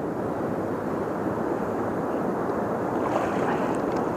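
Steady rush of river water running through shallow, rocky current.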